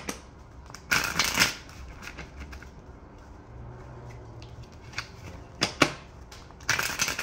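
A deck of oracle cards being shuffled by hand, in quick bursts of flicking card edges: one about a second in, then two more near the end.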